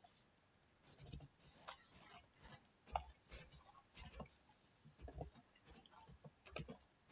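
Computer keyboard typed on slowly: faint, irregular key clicks with short pauses between them.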